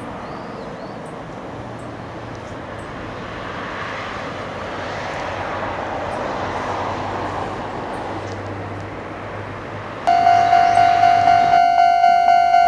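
A rush of outdoor noise swells and fades. About ten seconds in, a railway level-crossing warning bell starts suddenly, ringing a steady 'kan-kan' tone about three to four times a second, which signals an approaching train.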